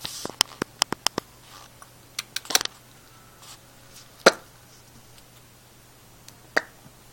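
Sharp clicks and knocks: a quick run of about six in the first second, a few more between two and three seconds in, then single knocks about four seconds in, the loudest, and again near the end.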